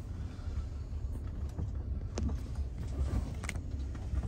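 Low, steady rumble of a 2021 Range Rover Velar 3.0 V6 creeping slowly along an off-road track, heard from inside the cabin, with a couple of faint clicks about two and three and a half seconds in.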